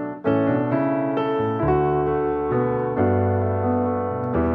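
Background piano music: a slow run of notes and chords.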